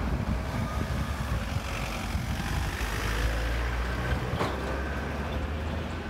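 A motor vehicle's engine running with a steady low rumble, with wind buffeting the microphone. There is one sharp knock a little over four seconds in.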